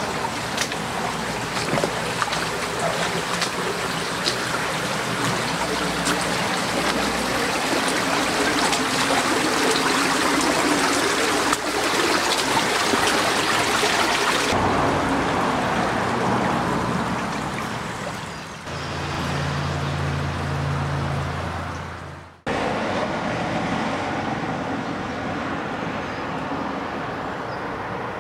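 Shallow stream water running over a stony bed, a steady rushing sound. It changes abruptly about halfway and again near the end, and a steady low hum joins it for a few seconds before the second change.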